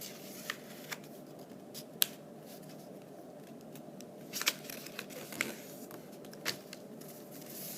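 A sheet of paper being handled and folded, with a few sharp crackles and snaps as it is creased, the sharpest about two seconds in.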